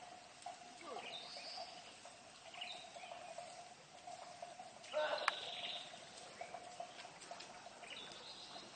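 Faint rural ambience: small birds chirping on and off over a steady faint drone, with one louder brief burst and a click about five seconds in.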